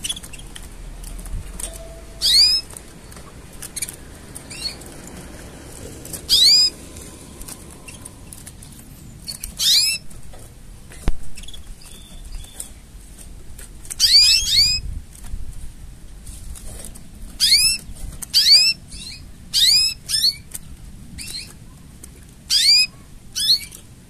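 Canary chirping in short bursts of quick, high, sweeping notes, about ten bursts spaced one to a few seconds apart, over a faint steady hiss.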